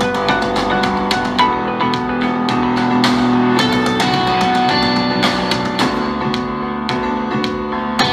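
Instrumental demo music with plucked guitar, playing through a Samsung HW-Q70T 3.1.2-channel soundbar and its subwoofer.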